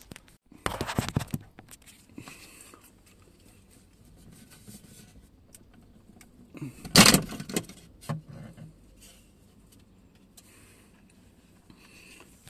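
Hard plastic trim cover of the windscreen sensor housing being worked loose by hand. It rattles and scrapes about a second in, with a louder plastic clatter around seven seconds in as it comes off its clips.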